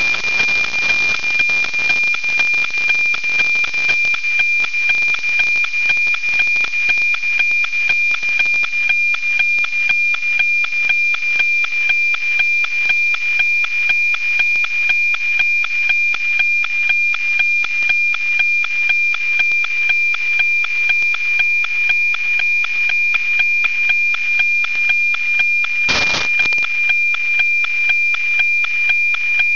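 NOAA 19 weather satellite's APT image signal, received on 137.1 MHz and FM-demodulated: a steady high-pitched tone over hiss with an even tick-tock about twice a second, each tick one scan line of the weather image coming in. A brief crackle of static near the end.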